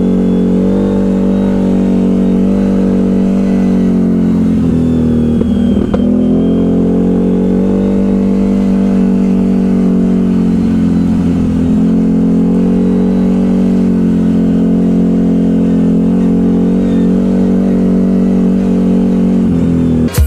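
ATV engine running steadily under way, with a brief dip and rise in revs about five to six seconds in.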